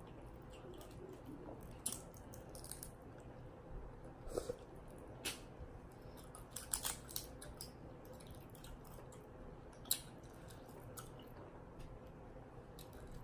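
Seafood shells being cracked and pried open by hand: scattered sharp clicks and cracks, a few at a time, over a faint low background.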